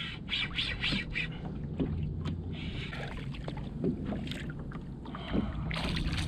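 Hooked king mackerel thrashing and splashing at the surface beside a kayak, with water sloshing and scattered small clicks and knocks. A steady low rumble of wind on the microphone runs underneath.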